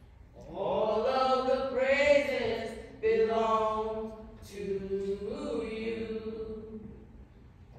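A voice singing a slow church song a cappella, in about three long phrases with held notes that slide up and down in pitch.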